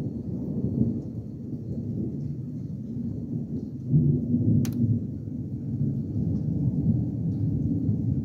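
Thunder rumbling on and on during a thunderstorm, swelling louder about four seconds in.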